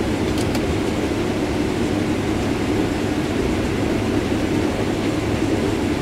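Case IH combine running steadily while harvesting corn and unloading grain on the go: an even engine and machinery hum, heard from inside the cab.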